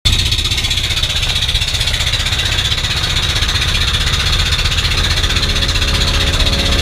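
A wooden motorboat's engine running steadily under way, a low, fast pulsing rumble, with a steady hiss of wind and water rushing past the hull.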